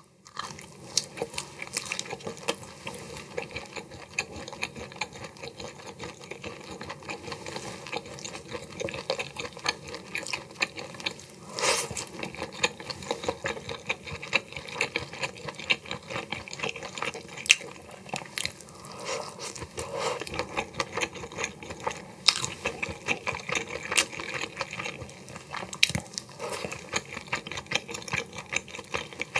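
Close-miked chewing and wet mouth sounds of someone eating cooked mantis shrimp meat, a steady run of small clicks and crackles with a few sharper clicks now and then.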